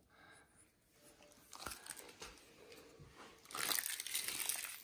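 Crackly rustling as a Pomeranian puppy plays at a man's hand, turning into a loud rustling hiss from about three and a half seconds in as the puppy's fluffy fur brushes against the microphone.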